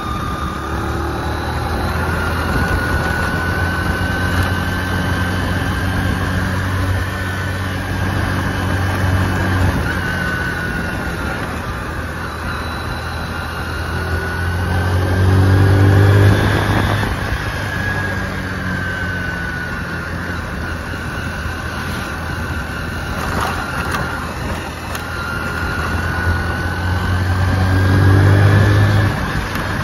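Small motorcycle engine running while riding along a road, its note rising and falling with the revs. It pulls hardest about halfway through and again near the end, then drops off sharply. Wind and road noise run underneath.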